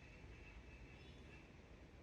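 Near silence: a faint, steady low rumble of distant traffic.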